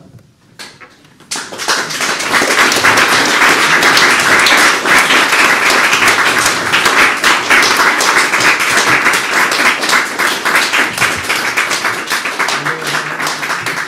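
Audience applauding: a few scattered claps, then full steady applause from about a second in, thinning toward the end.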